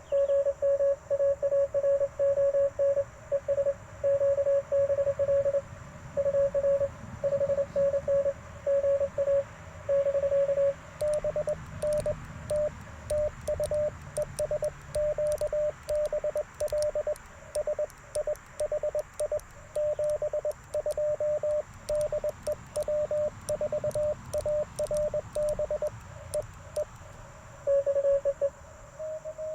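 Morse code from an Icom IC-705 transceiver: a tone of about 600 Hz keyed on and off in dots and dashes. For roughly the first third the code has no other sound with it, as a signal heard on the air; after that each element comes with sharp clicks of the Morse paddles as the operator sends, and near the end the tone runs clean again.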